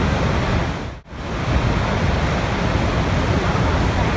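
Steady rushing water, an even continuous wash of noise that briefly drops out about a second in.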